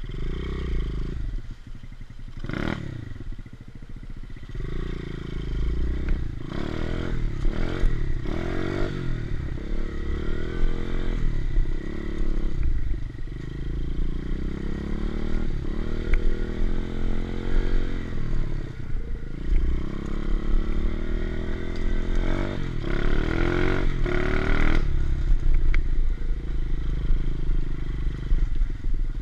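A 125cc single-cylinder pit bike engine being ridden hard, revving up and falling back over and over as the throttle is opened and closed. The throttle is shut off sharply about 25 seconds in.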